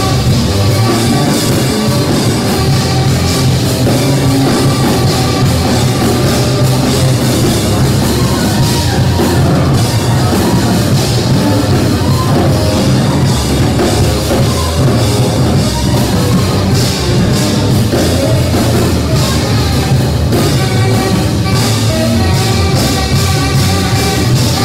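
Live band music from a tenor saxophone, a drum kit and an amplified electric stringed instrument, playing loud, dense and without a break.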